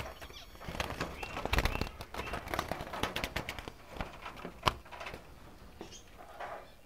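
Wire bird cage rattling and knocking as a hand reaches in to catch a diamond dove, with the birds fluttering their wings inside. A run of irregular clicks and scuffles, with one sharp knock about two-thirds of the way through.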